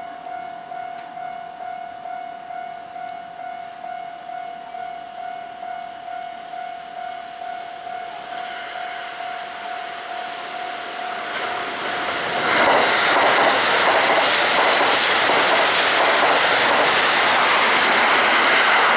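A level-crossing warning bell rings in a steady pulsing beat, about two strokes a second. About twelve seconds in, Kintetsu trains pass close by, a Hinotori limited express and a red-and-white commuter train, and their loud rushing rumble and wheel clatter drowns out the bell.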